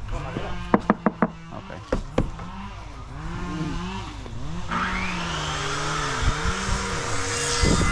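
Small drone's motors running, their pitch wavering. A few sharp knocks come in the first couple of seconds. About five seconds in a louder hiss and a rising whine set in as the motors speed up.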